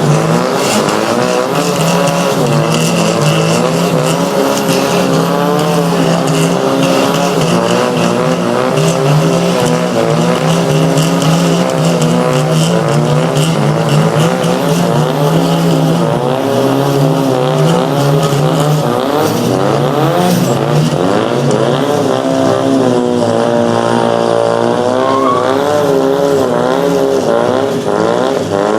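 Drift cars' engines revving hard, their pitch rising and falling without a break, with tyres squealing as the cars slide. Around three-quarters of the way through, a rev climbs steadily higher.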